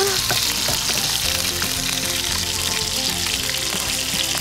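Fish shashlik skewers sizzling steadily and spitting as they fry in hot mustard oil in a pan; the spitting comes from water in the fish hitting the oil.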